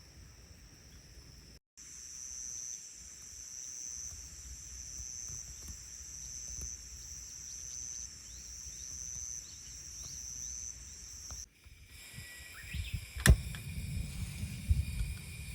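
Insects trilling outdoors: a steady high buzz that swells about once a second. After a cut, a low rumble with a single sharp click.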